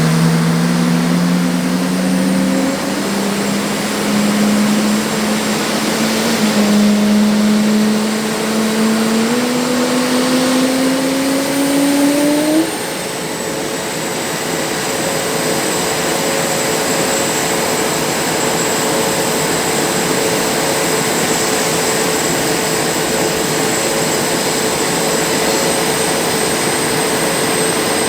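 Boeing F/A-18 Super Hornet jet engines running loud, with a whine that climbs in steps over the first twelve seconds or so and then holds steady, along with a high-pitched whine.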